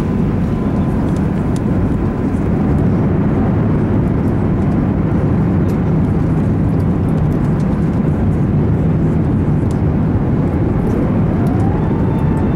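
Steady cabin roar inside an Airbus A380 descending to land. Near the end a faint tone rises in pitch and then holds level.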